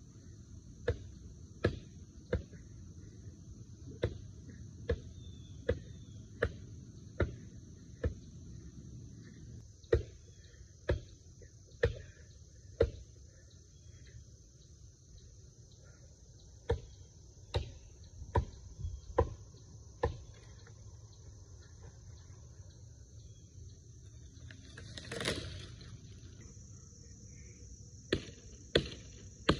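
Fiskars X15 axe chopping into dead tree wood: sharp, solid chops in runs of roughly one a second, broken by two pauses, with a one-second rush of noise shortly before the last run. Insects trill steadily in the background.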